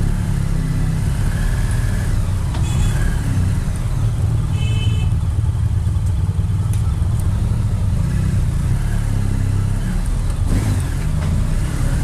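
Large motorcycle engine running steadily at low revs while riding at walking pace, heard close from the bike itself.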